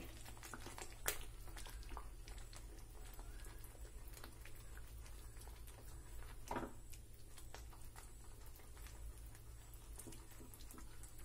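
Whisk stirring thick cornflour-and-sugar halwa mixture in a nonstick pan: faint wet stirring with light taps of the whisk against the pan, a sharper tap about a second in and another between six and seven seconds in, over a steady low hum.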